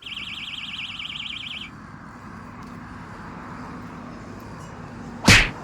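Electronic alarm giving a fast warbling high tone for about a second and a half, then stopping. Near the end comes a single short, loud thump.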